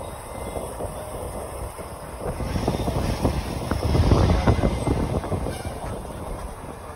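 Vehicle driving along, heard from inside: a steady rumble of engine and road with a lot of rattling. It swells louder about halfway through, then eases off.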